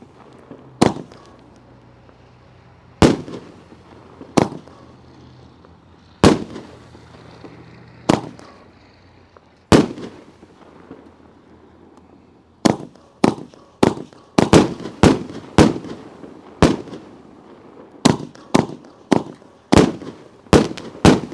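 500-gram fireworks cake firing its shells, each breaking overhead with a sharp, loud bang. The bangs come singly about every two seconds at first, then fast and close together through the second half.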